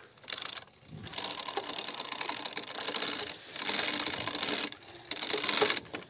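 Hand-pulled chain hoists lifting a trailer frame: fast ratcheting clicks of the hoist mechanism and chain, in runs of one to two seconds with short breaks between pulls.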